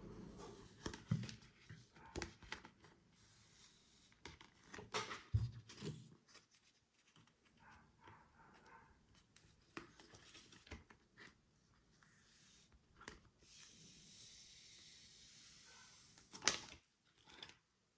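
Hand-work on a phone and its adhesive vinyl skin: scattered small taps, rubs and peeling sounds, with a sharper one near the end.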